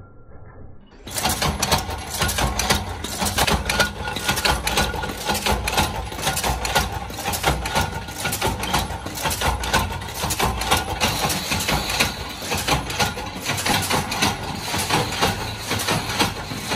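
Metalworking machines making lamp-holder screw shells, running with a fast, dense clatter and the clinking of the small stamped metal shells. It starts loudly about a second in.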